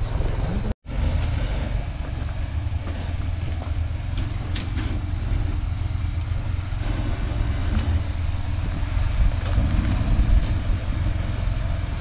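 V6 Mitsubishi Pajero engine running at a low, steady crawl with a deep rumble, and a light knock about four and a half seconds in. The sound cuts out completely for a moment just under a second in.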